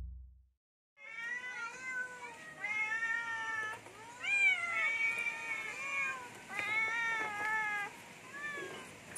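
Several stray domestic cats meowing over and over, their calls overlapping, asking for food at feeding time.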